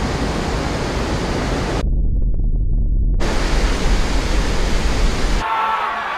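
Heavy surf crashing, a loud steady rush of breaking water and spray. About two seconds in the hiss dulls for about a second. Near the end the rush cuts off sharply, leaving a few faint high tones.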